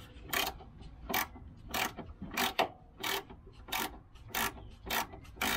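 Ratchet wrench being worked on a Volvo 240 engine mount bolt, a short burst of ratchet clicking on each return stroke, about ten strokes at an even pace under a second apart.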